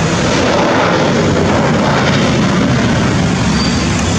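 Dash 8 Q400 turboprop airliner's two engines and propellers running, a loud steady roar as it rolls out along the runway after touchdown.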